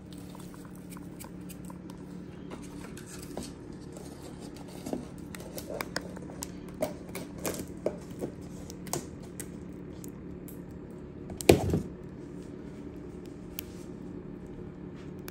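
Scattered light clicks and crackles from a pile of crisp, seasoned puffed pork rinds, then a single louder knock about eleven seconds in, over a steady low hum.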